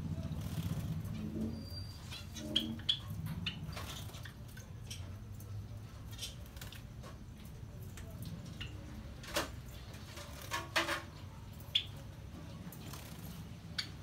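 Small caged finches giving short, scattered chirps and sharp chip calls, several in quick succession near the end, over a steady low rumble.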